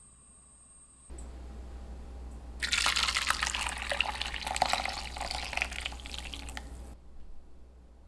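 Running water, splashing steadily for about four seconds from about two and a half seconds in, then cut off abruptly.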